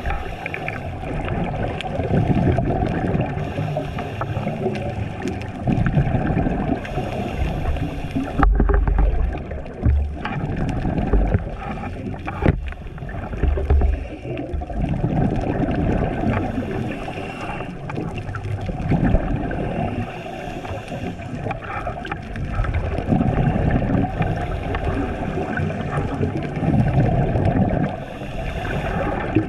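Scuba diver breathing through a regulator underwater, heard through a camera's waterproof housing: a hiss on each inhale and gurgling exhaled bubbles, in a cycle of about four seconds. A few dull knocks come about a third of the way in.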